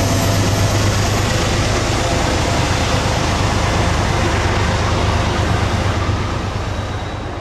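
Diesel locomotive passing close under power with its train: a steady low engine drone over the rumble of the wheels, fading near the end as the train moves away.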